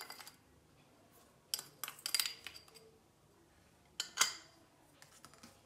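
A metal spoon clinking against a ceramic bowl and a stainless-steel bowl as sugar is spooned in. There are a few light clinks about a second and a half in, and a sharper pair about four seconds in.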